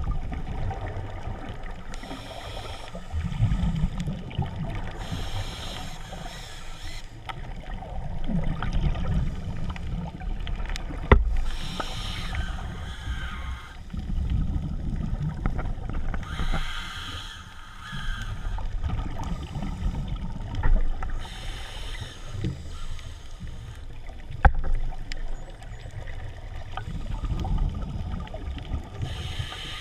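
A diver breathing underwater, heard through a camera housing: a hissing breath in and a gurgling rush of exhaled bubbles, repeating every few seconds. Two sharp knocks come about a third and four-fifths of the way through.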